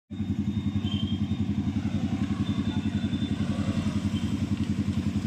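Motorcycle engine idling steadily with an even, rapid pulse.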